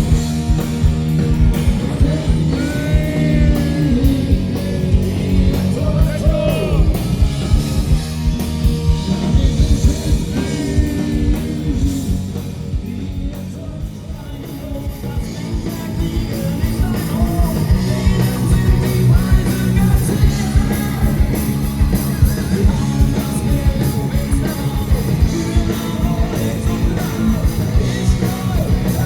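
Live rock band playing with a singer, drums keeping a steady beat under guitar. The music eases off briefly about halfway through, then builds back up.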